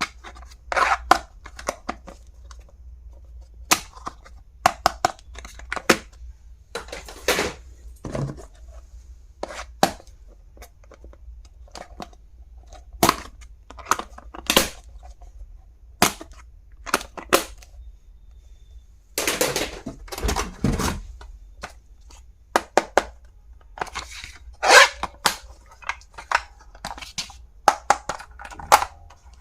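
Plastic stationery items being handled and opened by hand: irregular sharp clicks, snaps and taps, with a denser scratchy stretch about twenty seconds in.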